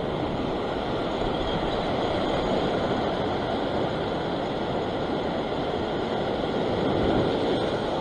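Surf washing over a rock platform: a steady rushing wash of water, swelling a little near the end.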